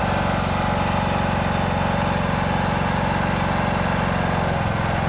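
Riding lawn mower's engine running at a steady speed.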